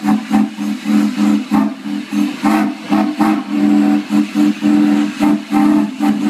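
Steam locomotive hissing as it vents steam, with a loud two-note hum that pulses on and off about twice a second.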